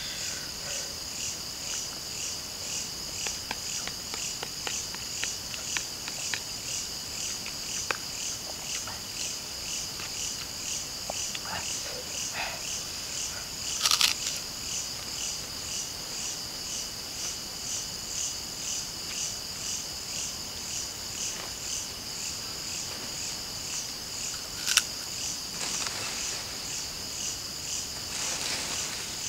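Night insects, likely crickets, chirping steadily in an evenly pulsing chorus, with small scattered clicks of a spoon on a plastic plate. A sharper click comes about 14 seconds in and again near 25 seconds.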